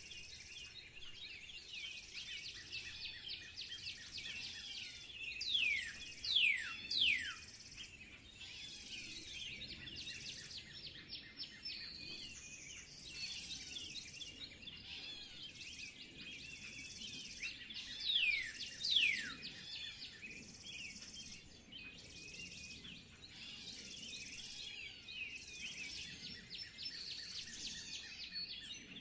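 Many wild birds singing together in a continuous, busy chorus of chirps and trills. Several louder whistles slide steeply down in pitch: three about six seconds in and two more at around eighteen seconds.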